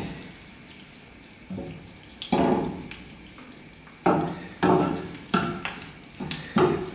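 Slotted spatula knocking and scraping against a nonstick pan as fresh sage leaves are stirred in hot olive oil, over a faint sizzle. One stroke a little over two seconds in, then about five quicker strokes from about four seconds in.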